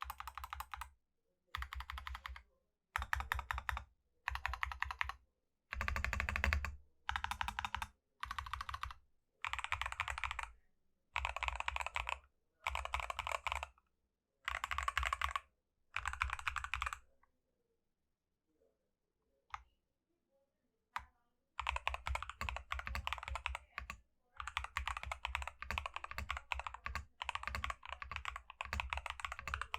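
Typing on a KC84 mechanical keyboard with Akko Cream Yellow V3 Pro linear switches, in a cotton-filled case with tape and PE foam mods: about a dozen quick one-second flurries of keystrokes with short gaps between them, then a pause broken by two single key presses, then steady fast typing over the last eight seconds.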